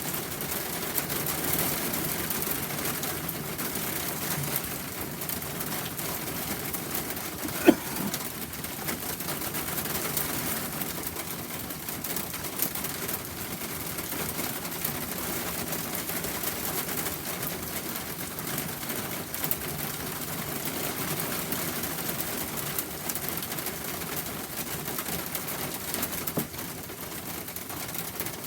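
Steady rain falling, an even hiss, with one brief sharp sound a little under eight seconds in that stands out as the loudest moment.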